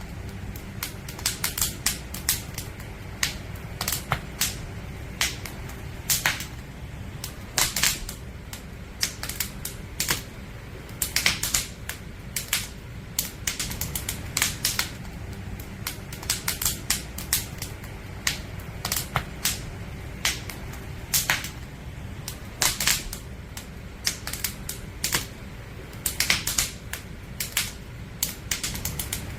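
Firewood burning in a campfire, crackling with irregular sharp pops and snaps, some much louder than others, over a steady low rumble.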